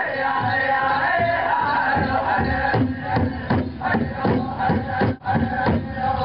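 Pow wow drum group singing a chanted song over a big drum. The voices carry the first half, then the steady drumbeat comes to the fore, at about three to four strokes a second, with a brief break just after the fifth second.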